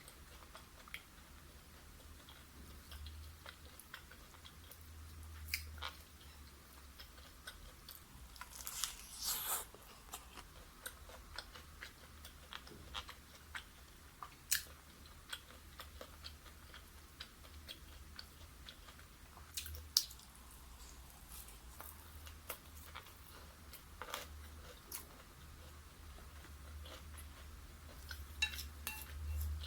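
Close-miked chewing and crunching of fried chicken: scattered crisp bites and mouth clicks, with louder bursts of crunching about nine seconds in, around twenty seconds, and near the end.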